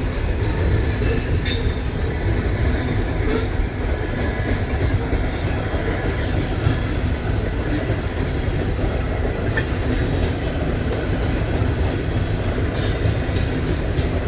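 Loaded coke hopper cars of a freight train rolling past: a steady rumble of steel wheels on rail, with brief high wheel squeals a few times and a longer one near the end.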